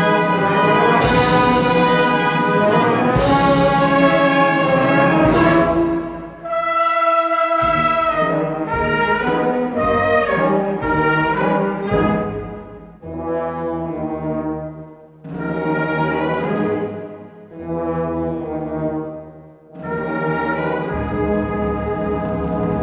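Maltese funeral march (marċa funebri) played by a brass-led band: sustained brass chords, with four heavy percussion strokes about two seconds apart in the first six seconds, then quieter phrases broken by short pauses, filling out again near the end.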